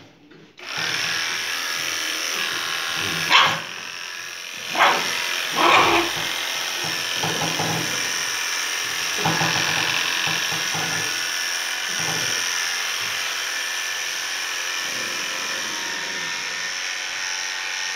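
Electric pet grooming clipper switched on about half a second in and running steadily while it clips a dog's matted coat. The dog barks sharply three times, about three to six seconds in, the loudest sounds here.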